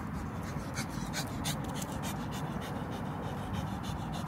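A dog panting in quick breaths over a low, steady rumble.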